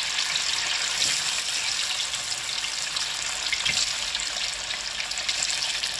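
Cubes of white tofu frying in hot oil in a wok: a steady sizzle.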